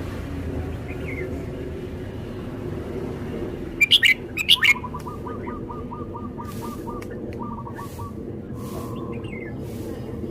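Red-whiskered bulbul singing a short, loud phrase of a few quick notes about four seconds in, followed by a fast run of softer ticks and a few faint notes, over a steady low rumble.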